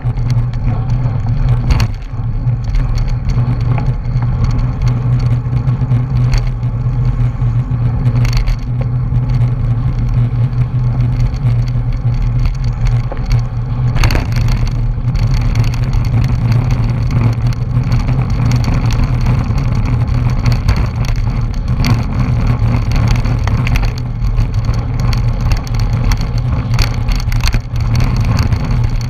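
Steady low wind buffeting and road rumble on a bicycle-mounted camera's microphone while riding at speed in a bunch of racing cyclists, with a few sharp clicks, the clearest about fourteen seconds in.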